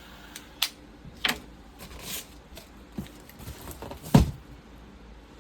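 Several sharp clicks and knocks of objects being handled, with a short hiss about two seconds in; the loudest is a heavier knock about four seconds in.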